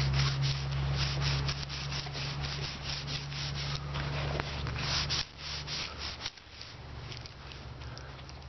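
Hands rubbing and handling a patched rubber bicycle inner tube against the tyre and wheel, close to the microphone: a quick run of scratchy rubbing strokes that thins out after about five seconds, over a low steady hum.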